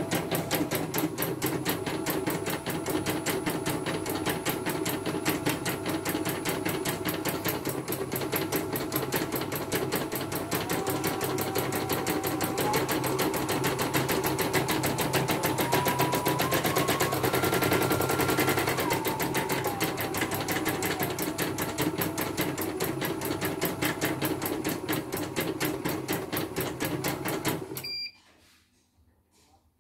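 CNY computerized embroidery machine stitching at speed: a fast, even clatter of needle strokes with a motor whine that steps up in pitch around the middle and then back down. The machine is running with its newly replaced presser foot. It stops suddenly near the end.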